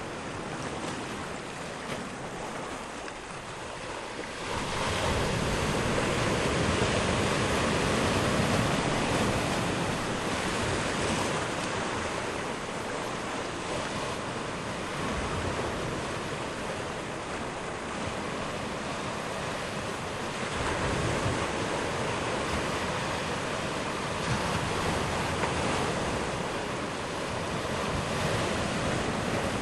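Sea surf washing ashore at low tide, a continuous wash of waves that swells louder about four seconds in, with wind buffeting the microphone.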